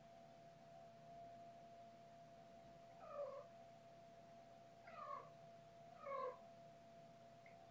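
A young kitten mewing three times, short pitched cries about two seconds and then one second apart. A faint steady high tone hums underneath.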